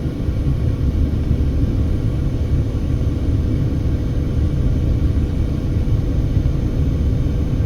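Steady low rumble of road and engine noise inside a moving car's cabin, with a faint steady hum on top.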